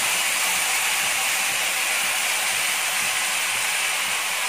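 Hot oil and butter sizzling steadily in a kadhai around a whole marinated chicken just put in to fry, a continuous even hiss.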